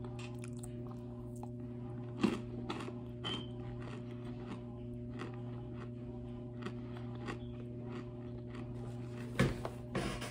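Dry cornstarch chunks crunching and crumbling as fingers squeeze them, a scattering of soft crackles with two sharper cracks, about two seconds in and near the end. A steady low hum runs underneath.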